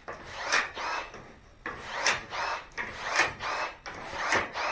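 Milwaukee M12 cordless pruning shears cutting through thin plywood scrap: a run of short cutting strokes, about one a second.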